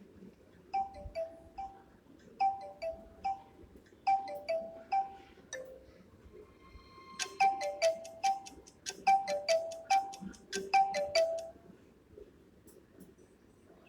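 Vivo Y17s built-in alarm tone playing: a short descending three-note chime figure repeated about every 1.6 s, joined about halfway through by a fast ticking beat, then stopping a couple of seconds before the end.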